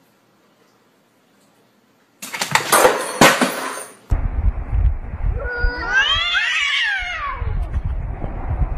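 A cat yowling at another cat in a face-off: one long drawn-out call that rises in pitch and then falls, over a low rumble. Before it, starting about two seconds in, a small toy helicopter's rotor clatters loudly for a couple of seconds.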